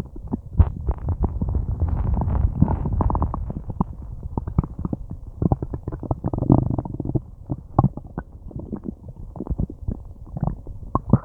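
Human stomach and intestines gurgling and growling while digesting food: a dense, irregular run of small pops and clicks, with longer low rumbles about two seconds in and again past six seconds.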